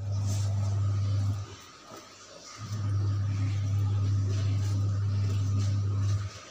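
Steady low electrical hum that cuts out for about a second a second and a half in, then comes back and cuts out again near the end.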